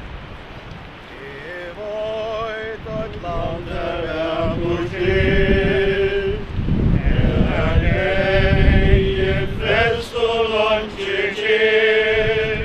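Voices singing a slow funeral hymn, with held, wavering notes, starting about a second and a half in and growing louder. Wind buffets the microphone throughout.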